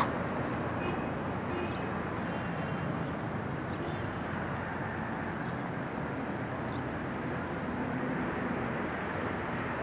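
Steady outdoor background noise, an even low rumble with no single clear source, with a few faint, brief high chirps in the first couple of seconds.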